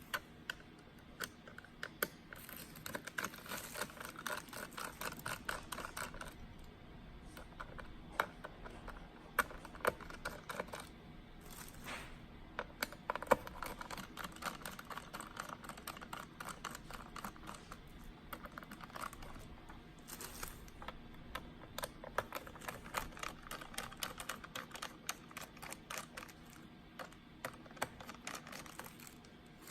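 Many small, irregular clicks and taps of hands working on a Lenovo Edge 15 laptop, with a few sharper knocks among them.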